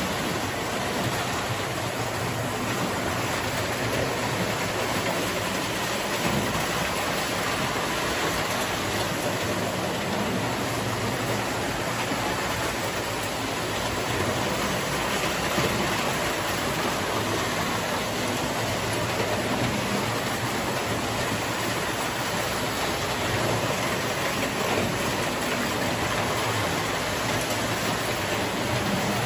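Several toy electric trains running at once on metal track around a layout: a steady, even rolling noise of motors and wheels that holds at the same level throughout.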